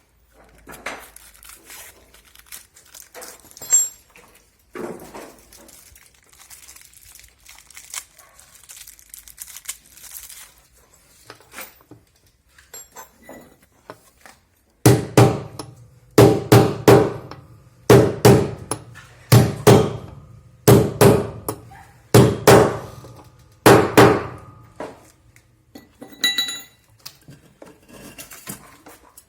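Quiet clinks of metal parts being handled, then about halfway through a run of a dozen or more hard hammer blows, mostly in pairs, as a new ball bearing (a 6203) is driven into its seat in the washing machine's drum support.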